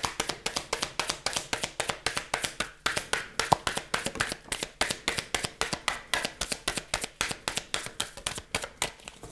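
A small deck of oracle cards being shuffled by hand, with quick, even slapping taps of about five or six a second that stop shortly before the end.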